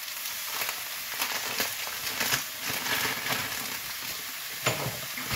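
Leek, onion and mushroom sizzling in a frying pan as dry long-grain rice is poured in and patters onto the pan. There is a sharp knock near the end.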